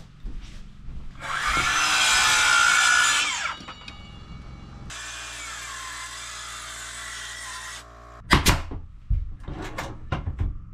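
A power saw ripping a hardwood flooring board to width, trimming its thickness for the last row. The loud cut lasts about two seconds. It is followed by a steady, quieter motor drone of about three seconds, and several sharp knocks near the end.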